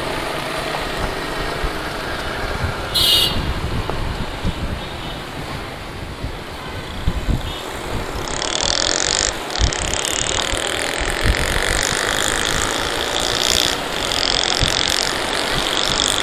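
A Yamaha 125 cc single-cylinder motorcycle being ridden in traffic, heard from a camera mounted on the bike: the engine running under wind buffeting on the microphone. A brief high tone sounds about three seconds in.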